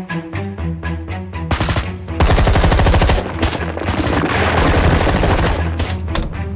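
Background music, then, about one and a half seconds in, a long rattle of rapid machine-gun fire, a cartoon sound effect that lasts about four seconds before it thins out near the end.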